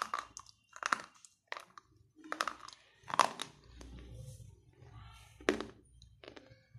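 Crunching bites and chewing on a wet slate pencil: a string of sharp, separate crunches about once a second, the loudest a little after three seconds in and about five and a half seconds in.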